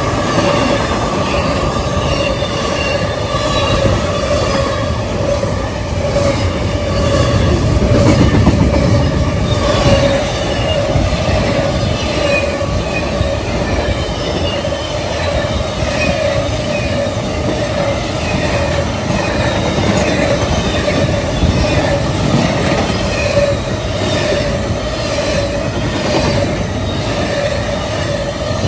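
Norfolk Southern intermodal freight train's well cars rolling steadily past, with a continuous wheel squeal and the clack of wheels over the rail joints.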